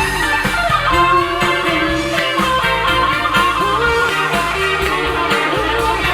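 Live band music with no vocals: a guitar-led instrumental passage over a steady drum beat.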